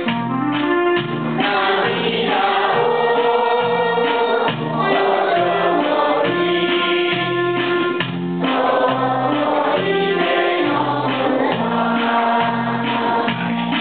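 Electronic keyboard playing a tune: held melody notes over an accompaniment whose bass line pulses about twice a second.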